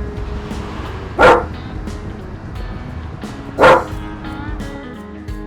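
A dog barking twice, about two and a half seconds apart, over background music.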